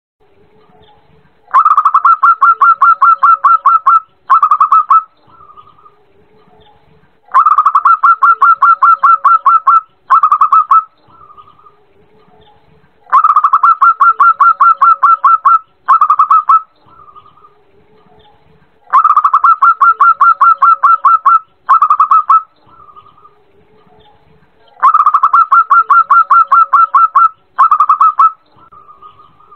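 Female zebra dove (perkutut) calling to males: five identical phrases, about one every six seconds. Each phrase is a fast run of staccato cooing notes lasting about two and a half seconds, then a short second run and a soft trailing note.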